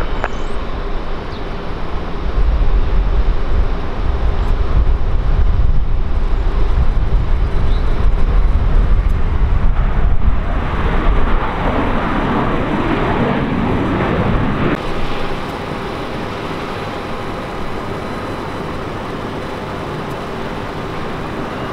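A jet airliner's engines passing close by with a loud, deep rumble. Around the middle a sweeping whoosh falls and rises in pitch as the aircraft goes past, and the noise drops to a steadier, quieter engine sound about three-quarters of the way through.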